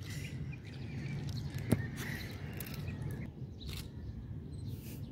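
Outdoor ambience: a steady low rumble with faint bird calls, and one sharp click about a second and a half in.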